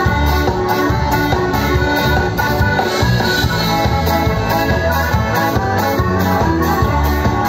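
Live band playing through a PA system: accordions lead over electric bass, electric guitar and drums, with a steady beat.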